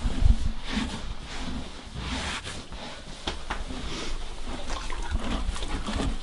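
Horse stable ambience: rustling and shuffling, as of hay and movement in the stalls, with scattered small knocks and a few low thumps in the first second.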